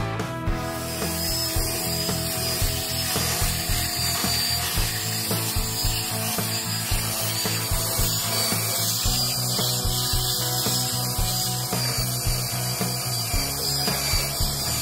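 Power sander running and grinding down fairing compound on a fiberglass hood, with a steady high whine over the scraping noise.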